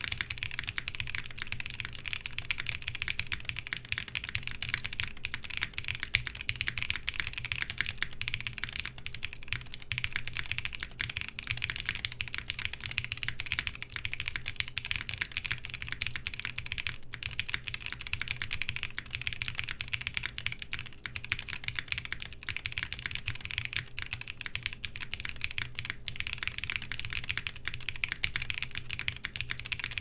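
Continuous typing on a 7V mechanical keyboard with lubed Salmon tactile switches, a polycarbonate plate and ePBT keycaps: a steady, even stream of key clacks. A faint steady fan hum runs underneath.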